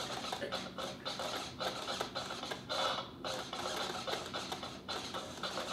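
Road Rippers Street Beatz toy car playing one of its built-in beats through its small speaker: a fast, choppy beat that sounds thin, with no bass.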